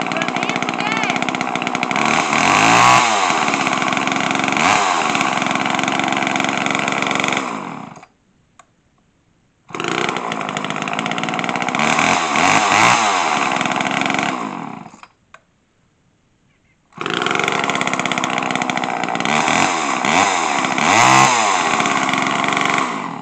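Two-stroke Homelite chainsaw running, its engine revved up and down several times. It cuts out about eight seconds in and again about fifteen seconds in, and each time starts again within two seconds.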